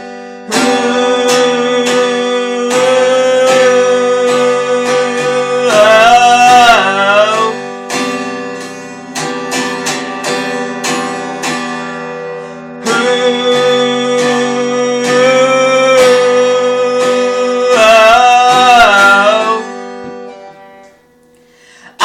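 Song music led by acoustic guitar, with held notes and a wavering, bending melody line twice; an instrumental stretch between sung verses. It fades briefly near the end.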